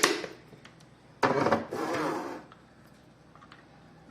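Food storage containers being handled in a fridge: a sharp click, then about a second later a sliding, scraping rub as a box is moved.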